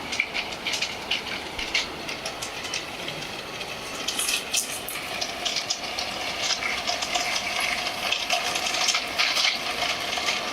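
G scale model train running along garden track, its wheels clicking and rattling irregularly over the rails, with a faint steady motor whine in the second half.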